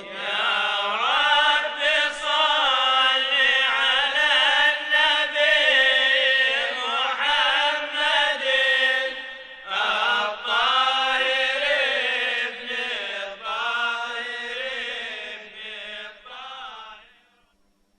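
A singer's voice chanting a long, ornamented melismatic line in Arabic religious praise-singing (madih), with a short break about ten seconds in and stopping shortly before the end.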